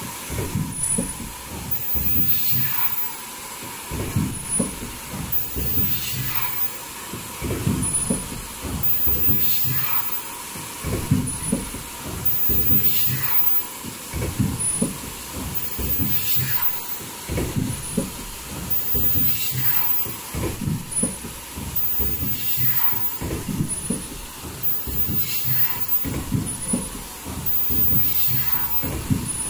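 Automatic foldable mask production line with valve welding, running in a regular cycle about every three seconds. In each cycle a high-pitched whine switches on and off, a short higher pip sounds, and there is a burst of hiss over clattering, rumbling machinery.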